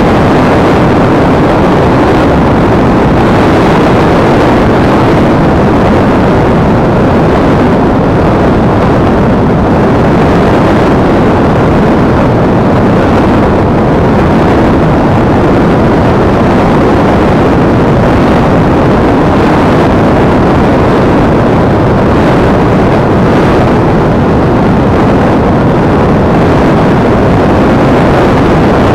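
Loud, steady rush of wind and flight noise picked up by an action camera on a Multiplex EasyStar RC model plane in flight.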